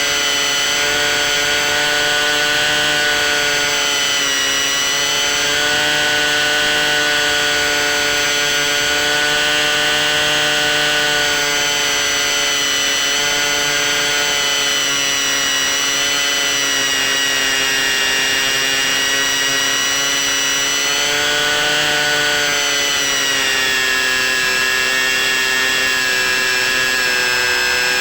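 C1 Chaser FPV plane's electric motor and propeller running steadily in flight, a loud whine with throttle-driven pitch shifts. The pitch eases down a little around four seconds in and drops noticeably near the end.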